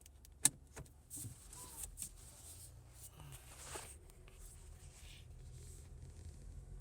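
Inside a 2016 Mazda 6 while driving: a steady low road rumble, with a sharp click about half a second in, the loudest sound, followed by a few lighter clicks and knocks and a soft rustle.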